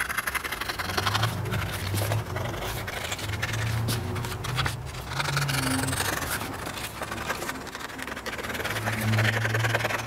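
Scissors snipping through a large paper template sheet, with the sheet rustling and rubbing as it is held and turned.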